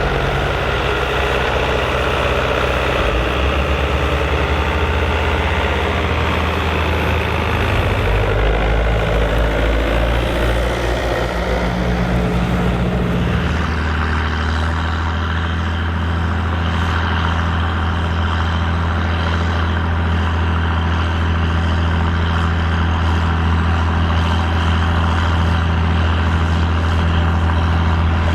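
Old diesel farm tractor engine running steadily under load while pulling a plough. About halfway through, the engine note changes and settles into a steadier low note.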